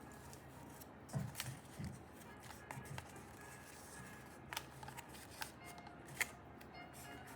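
Quiet background music, with a few short rustles and clicks of cord being handled while a knot is tied.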